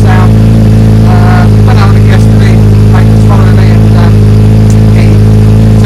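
Kawasaki H2 SX's supercharged 998 cc inline-four idling steadily through an aftermarket Pipewerx end can.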